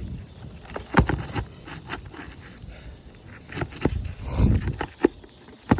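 Irregular knocks and scraping of a hand tool working against old roof shingles, prying up a stubborn roofing nail that will not come out.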